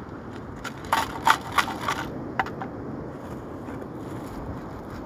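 A short run of sharp crackling, crunching clicks about a second in, from handling gear on a stony beach, over a steady wash of surf and wind.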